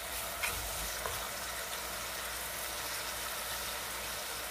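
Grated carrots frying in coconut oil in a pot on a gas stove, a steady sizzle, with two light clicks about half a second and a second in.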